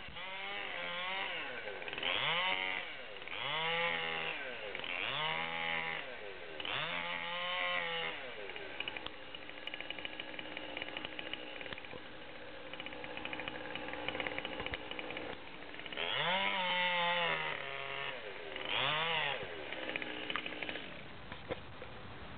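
Two-stroke chainsaw cutting into the top of a cedar trunk, revving up and dropping back in repeated bursts, with a steadier stretch of running in the middle.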